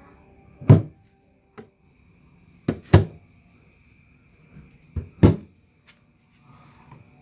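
Doors of a homemade wooden TV cabinet being handled, giving sharp knocks: one about a second in, then two quick pairs around three and five seconds in.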